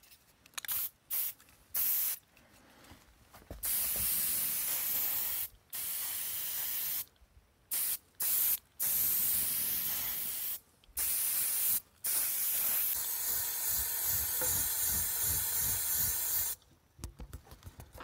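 Aerosol spray can spraying in repeated bursts: a few short puffs at first, then long sprays of one to four seconds with brief gaps, and quick short puffs near the end.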